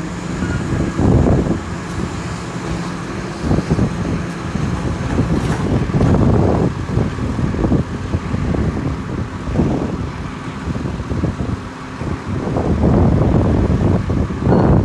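Wind buffeting the microphone: a loud, uneven low rumble that swells and drops in gusts.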